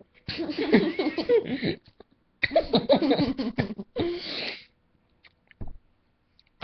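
A person's voice making three drawn-out voiced sounds: two of about a second and a half each, then a shorter one about four seconds in.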